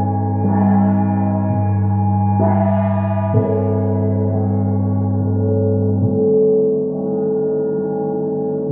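Small hand-held gong struck several times with a soft felt mallet, each stroke ringing on with many overtones over a sustained deep gong hum. The deep hum fades out about six seconds in.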